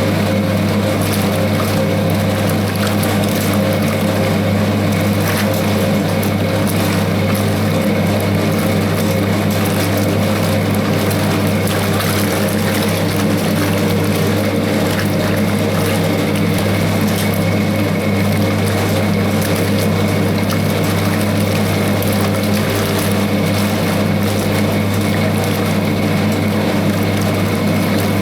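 Hoover 0321 wringer washing machine running steadily, its electric motor humming while the wash water churns in the tub.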